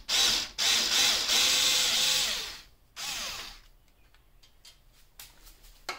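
Cordless electric screwdriver with a Torx bit running in three runs, a short one, a long one of about two seconds and a shorter one that falls in pitch as it slows, backing a headlight retaining-ring screw out. After that come a few faint clicks.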